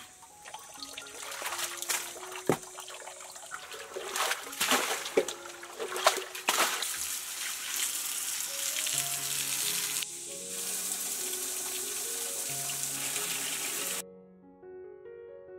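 Spring water running and splashing into a stone trough, with irregular splashes in the first half as hands dip into the water, then a steady rush from a pipe that cuts off abruptly near the end. Background music plays along.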